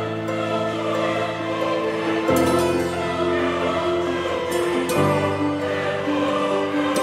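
Background music of sustained choral chords, changing chord twice.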